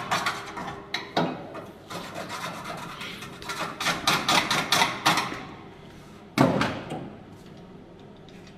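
Hand tool working on a steel bracing bar: a run of irregular sharp taps and rasping scrapes, with one louder strike about six and a half seconds in, after which it goes quiet apart from a low background hum.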